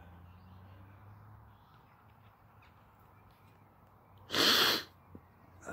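A person with a cold sneezing once, short and loud, about four seconds in, against faint background noise.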